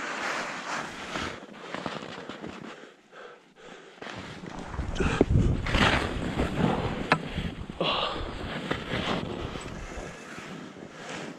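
A single ski sliding and scraping over snow on a steep slope. Wind buffets the microphone, heavily from about four seconds in.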